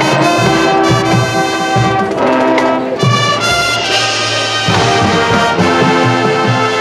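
High school marching band brass playing loud, sustained chords that shift to new chords about three seconds in and again just before five seconds.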